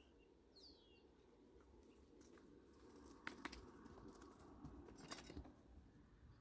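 Near silence: a faint low background hum, one short falling bird chirp about half a second in, and a few soft clicks in the middle.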